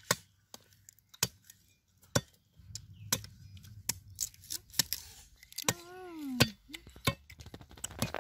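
Sugarcane being bitten, torn and chewed: a string of sharp, separate cracks and crunches as the fibrous stalk is bitten and its rind stripped. About six seconds in, a short vocal sound falls in pitch.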